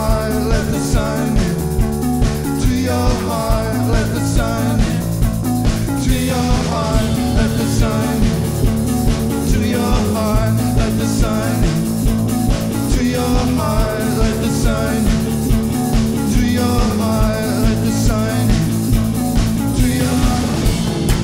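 A rock band playing a song with a singer, over a steady beat.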